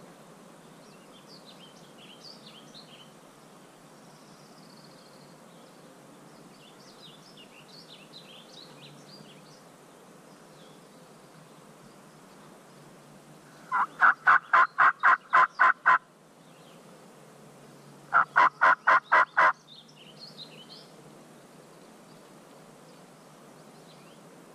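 Two loud runs of wild-turkey-style yelps: about ten evenly spaced notes, then a couple of seconds later about seven more. Faint songbird chirps come before and between them.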